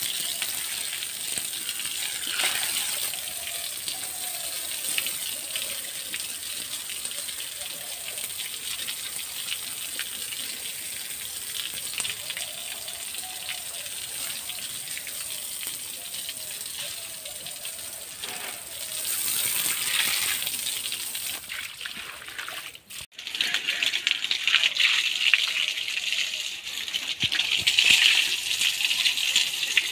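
Water running and gushing, probably being used to wash down the pen. There is a short break about three-quarters of the way through, after which the splashing is louder.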